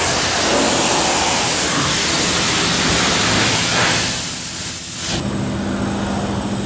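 High-pressure wash wand at a self-service car wash spraying water: a loud, steady hiss that cuts off about five seconds in, leaving a low steady hum.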